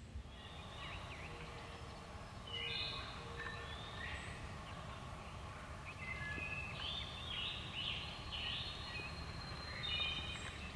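Wild turkey gobbler gobbling from the field, among songbirds singing in the woods, over a steady low rumble of background noise.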